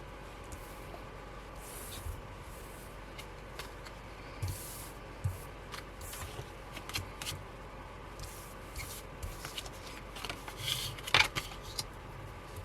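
Photocards being handled and laid out on a table: soft rustling and light taps, with a sharper cluster of taps about eleven seconds in.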